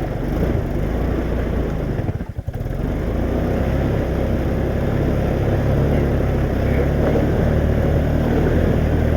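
ATV engine running steadily under load, dropping out for a moment about two seconds in, then running on a little louder.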